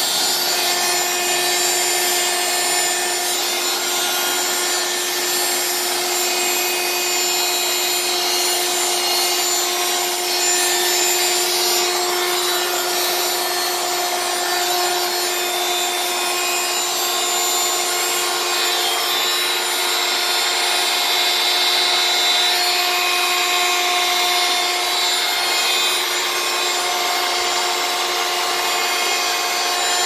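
Dirt Devil 4-amp hand vacuum running steadily, a motor whine over rushing air, as its narrow crevice nozzle sucks dust from under the keys of an organ manual.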